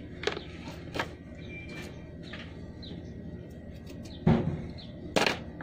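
Handling noise: a few sharp clicks and knocks, the loudest a thump about four seconds in and a sharp knock about a second later.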